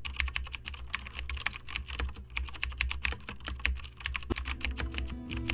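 Typing sound effect: rapid, irregular key clicks over a low hum, laid under text appearing letter by letter on screen.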